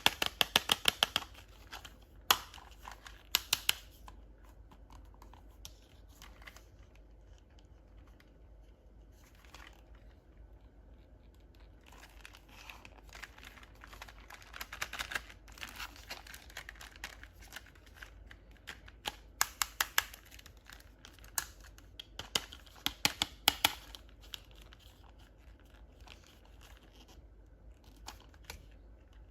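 Plastic toy packaging being opened and handled: bursts of sharp crinkling and tearing, with quieter rustling between them.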